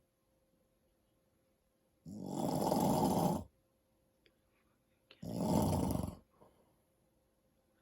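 A man snoring: two loud snores about three seconds apart, the first a little longer than the second, with quiet in between.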